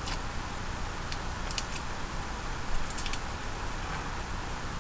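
Faint crackles and ticks of papery garlic skin being peeled off a clove with a small knife, a few times, over a steady low background hum.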